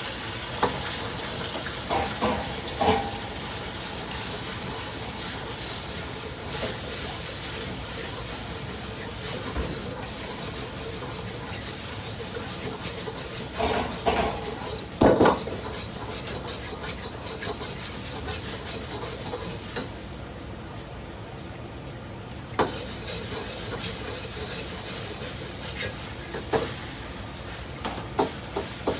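Beaten egg and then rice frying with a steady sizzle in a hot steel wok. A metal ladle stirs and knocks against the wok at intervals, with the loudest cluster of clanks about halfway through.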